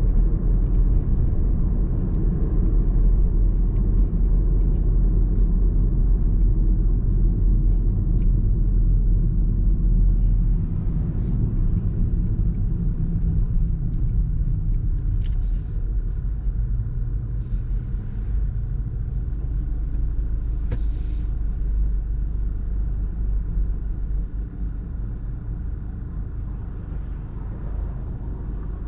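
Steady low rumble of a car driving, road and engine noise. It gets a little quieter about ten seconds in and again near the end.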